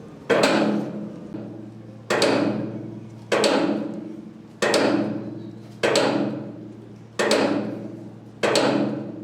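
Welding-electrode making machinery running: a steady hum with a sharp knock that repeats about every 1.2 to 1.3 seconds, seven strokes in all, each trailing off over about a second.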